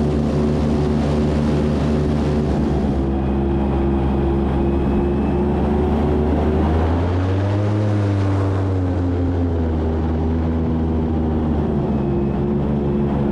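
Airboat engine and its caged air propeller running at speed, a steady loud drone; a little past the middle the pitch rises briefly and then eases back down.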